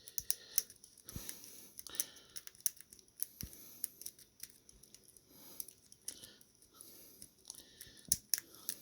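Lock pick scraping and clicking against the pin tumblers in a Master Lock padlock's keyway while tension is held on the plug: a run of small irregular metallic clicks and scratches as the pins are felt for and set.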